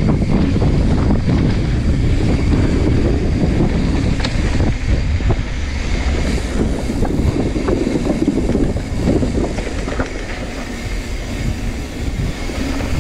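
Mountain bike rolling down a rocky dirt trail: steady tyre and trail noise with scattered clicks and knocks, and wind rushing over the microphone.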